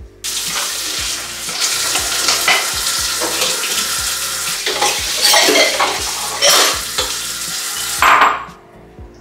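Water from a kitchen tap running and splashing into a stainless-steel sink, with a few light clinks of crockery. It starts suddenly just after the beginning and is turned off about eight seconds in.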